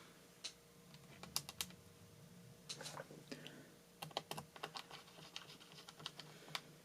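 Scattered light clicks and taps, some in quick little runs, from hands working on an opened laptop's internal parts and cables.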